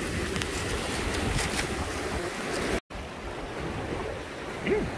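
Vehicle driving on a rough back road, heard from inside: a steady rumble of road and wind noise, dropping out for an instant a little under three seconds in and quieter afterwards.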